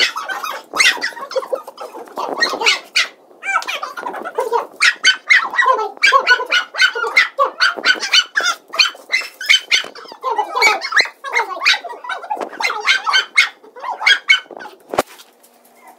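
Two small dogs barking in quick, high-pitched, chipmunk-like yaps as they play, two or three barks a second with short pauses. One sharp knock near the end.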